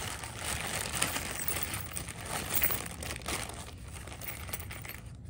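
Clear plastic hardware-kit bag crinkling as gloved hands rummage through the small brake springs and pins inside it. The rustling is busier at first and quieter in the last couple of seconds.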